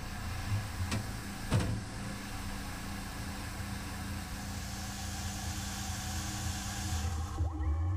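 Tormach PCNC 440 CNC mill running with a steady hum and hiss. Two sharp clicks come about a second and a second and a half in, and near the end the hiss stops, leaving a lower hum.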